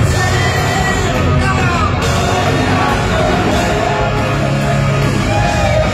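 Loud live heavy metal from a band on stage, heard from within the audience: electric guitar and drums.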